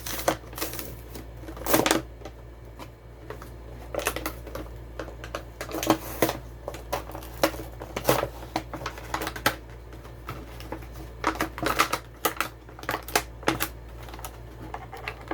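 Plastic blister packaging and card backing of die-cast toy cars being pried and torn open: irregular crackling, clicking and rustling. The packs are hard to get into, so the handling is long and effortful.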